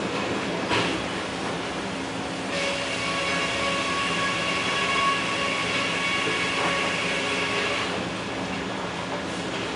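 Sawmill carriage and circle saw machinery running with a steady hum, with a sharp knock just under a second in. From about two and a half seconds to about eight seconds a steady whine of several high tones rides over the hum, then drops away.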